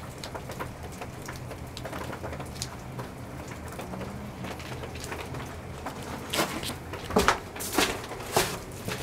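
Rain falling steadily, with scattered drip ticks over a low steady hum. Near the end come several loud knocks and rustles from the camera being handled.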